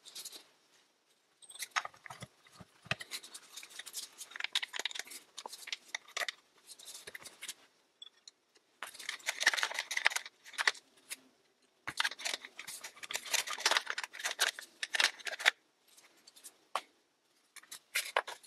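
Metal parts of a gear lever and its shift housing clicking and scraping while being fitted together by hand, in irregular bursts with short pauses.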